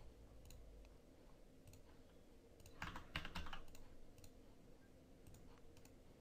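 Faint computer keyboard keystrokes, a few scattered clicks with a short burst of several keystrokes about three seconds in, over a faint steady hum.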